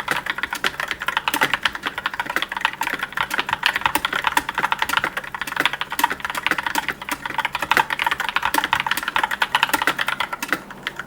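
Rapid typing on a mechanical keyboard: a dense, continuous stream of key clicks that pauses briefly near the end.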